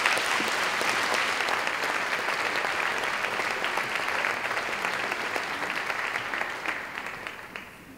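A large audience applauding, a dense steady clatter of many hands clapping that dies away over the last second or two.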